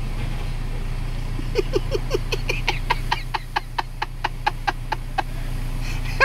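Rapid cackling laughter in short pitched bursts, about five a second, starting about a second and a half in, over a steady low engine rumble.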